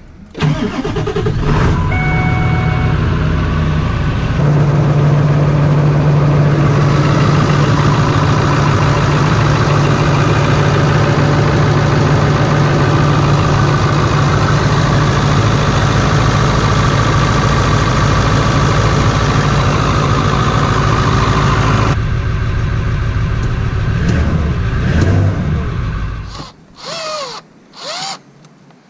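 Ford 7.3L Power Stroke turbo-diesel V8 starting and then idling with a steady low drone. A few seconds before the end the engine stops, and a few short squeaks follow.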